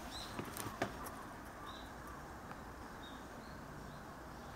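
Quiet outdoor background with a few faint, short high chirps from small birds, and two light knocks, about half a second and a second in, from footsteps on the boat's deck.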